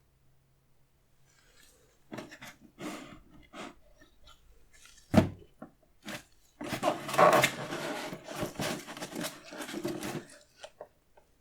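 Hands handling a sneaker box and its packaging: scattered rustling and tapping, a single sharp knock about five seconds in, then a few seconds of dense rustling.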